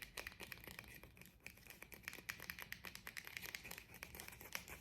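Fingernails tapping and scratching on a small plastic toy pepper: a quick, irregular run of faint, crisp clicks, several a second.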